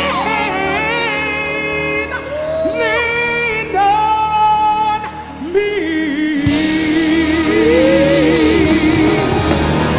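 Live concert singing by a stage full of singers and a gospel choir with band, long notes held with vibrato. The sound fills out and grows louder about six and a half seconds in.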